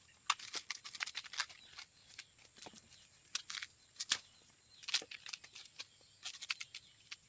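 Fresh bamboo shoots being peeled by hand: the husk sheaths tearing and snapping in irregular sharp crackles, a few a second.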